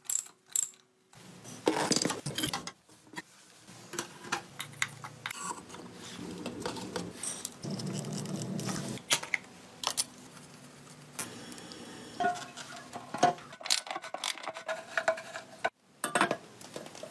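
Clicks, clinks and knocks of hand tools and metal parts during motorcycle reassembly, starting with a wrench working on the rear brake plate and axle. A low hum runs through the middle.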